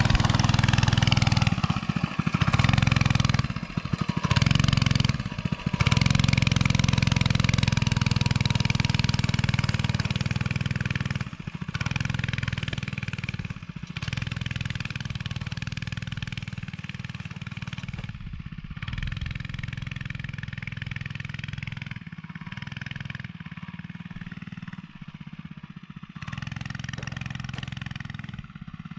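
Small minibike engine running under throttle as the bike pulls away up a hill, its sound dropping out briefly several times in the first few seconds and twice more later as the throttle is let off and opened again, the uneven throttle of a beginner rider. The engine grows gradually fainter as the bike rides off into the distance.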